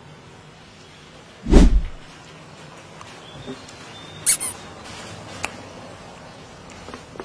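Plastic squeeze bottle of hot sauce spluttering once as it is squeezed, a short loud burst about a second and a half in. A short hiss and a light click follow a few seconds later.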